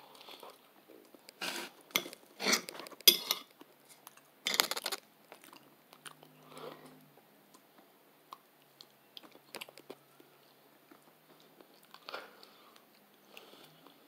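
A person chewing and biting food: a run of about five loud chews in the first five seconds, then only faint, scattered mouth sounds.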